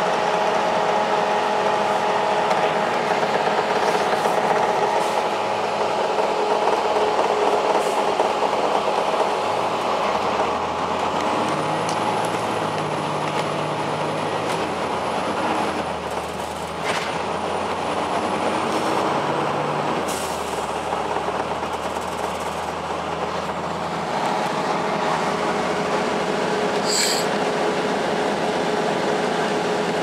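Cabin noise of a 2002 Blue Bird CS transit bus under way: its Cummins ISL9 diesel and Allison B400R automatic transmission running with a steady whine, the engine note changing in steps through the middle. A short hiss of air comes about twenty seconds in.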